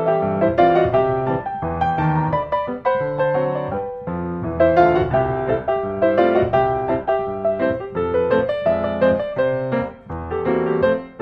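Background piano music, a run of notes over low sustained chords.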